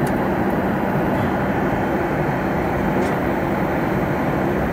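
Steady cabin noise of a Boeing 737 MAX 9 airliner in smooth cruise: an even rush of airflow and engine noise with a low hum, holding level throughout.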